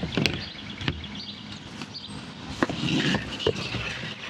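Irregular clicks and knocks of tools and small hardware being handled on a workbench.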